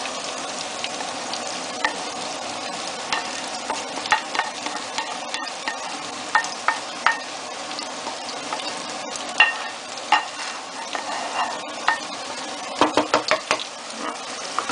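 Eggplant, celery and tomato-onion sauce sizzling in a frying pan while a wooden spatula scrapes the sauce in from a second pan and stirs, with scattered knocks and scrapes of the spatula on the pan. Near the end comes a quick run of knocks as the stirring speeds up.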